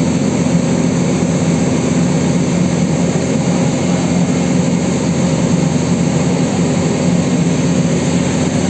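JCB 4DX backhoe loader's diesel engine running steadily under load, a continuous low drone, as the machine holds a suspended transformer.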